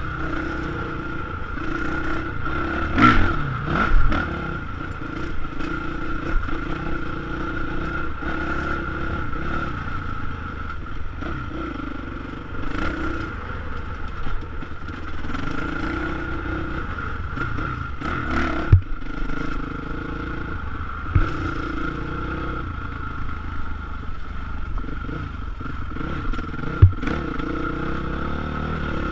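Dirt bike engine running as the bike is ridden along a rough dirt trail, its note rising and falling with the throttle, heard from the rider's helmet. Occasional sharp knocks and clatters from the bike hitting bumps, the loudest a cluster about three to four seconds in.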